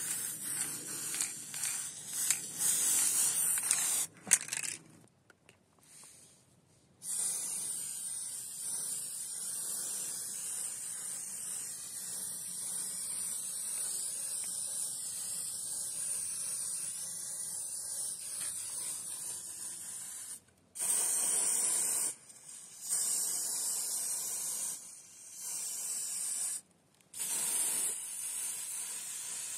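Aerosol spray-paint can hissing as black paint is sprayed onto metal parts. It goes in bursts: spraying at the start, one long spray of about thirteen seconds in the middle, and several shorter sprays near the end with brief breaks between. There is a brief sharp knock about four seconds in.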